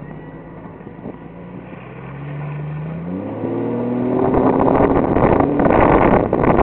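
Off-road Jeep engine revving up with rising pitch, then, about four seconds in, running hard under a louder rushing noise.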